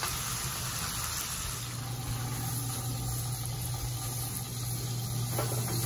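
Outdoor gas burner running steadily with a low hum under a Lodge cast iron skillet, a spatchcock chicken sizzling in the hot pan.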